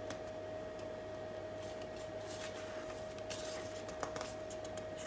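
A steady high electrical whine, with faint rustling handling sounds and a single short click about four seconds in.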